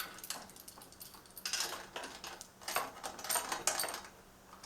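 Socket wrench ratcheting in short spells of metallic clicking, snugging the bolt of a bicycle's quill stem just firm rather than tight.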